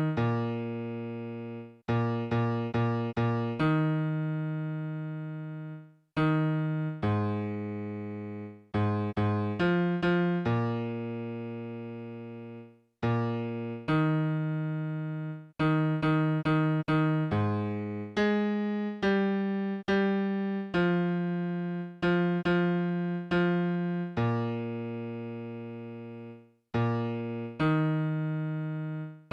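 A single low melodic line played note by note on an electric-piano keyboard sound, with no voice: the bass part of a choral song, played for part practice. Long held notes alternate with quick runs of short notes, and a brief break comes between phrases.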